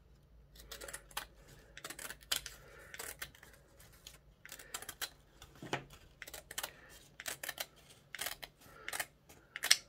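Scissors cutting through stiff woven millinery material: an uneven run of short, crisp snips as the blades close along a curved line.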